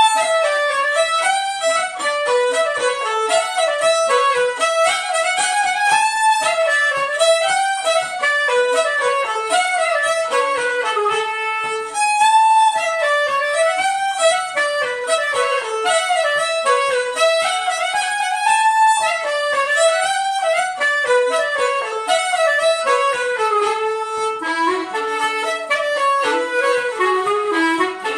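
Fiddle and clarinet duo playing a folk polska, a quick running melody with the two instruments together.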